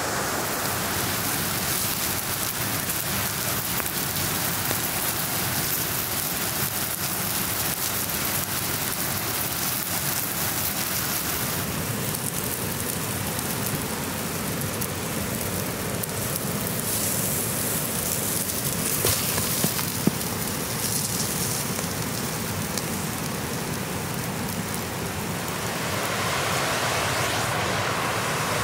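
Steady rushing hiss of flowing stream water, with a few sharp crackles from a wood fire about two-thirds of the way through; the rushing grows a little louder near the end.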